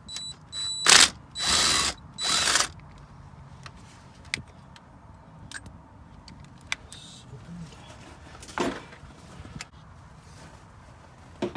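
Socket ratchet wrench clicking in three quick runs near the start, with light clicks and one more short run later, as a 10 mm bolt holding the starter's wire-connection bracket is undone.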